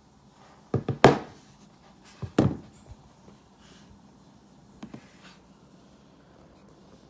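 A few loud thuds and knocks in two clusters about a second and a half apart, then a few faint clicks. The sounds are too sparse and uneven to be a run of typing.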